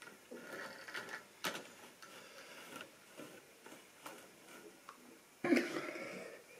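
Light clicks and plastic-and-metal clatter of a small model locomotive being set on the rails by hand. There is a sharp click about one and a half seconds in and a louder clack about five and a half seconds in.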